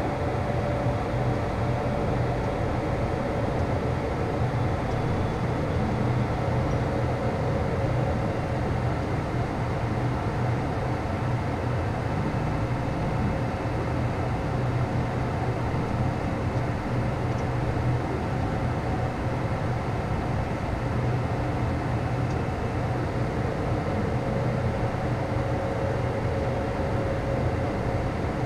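Steady cockpit noise of a Beechcraft Premier 1A business jet on final approach: the running of its twin Williams FJ44 turbofans and air rushing past the airframe, with a low hum and a thin steady whine that fades midway and returns toward the end.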